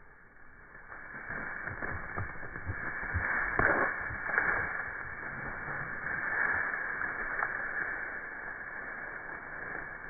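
Dry brush and twigs rustling and snapping, with a few low knocks and two sharper cracks about three and a half and four and a half seconds in.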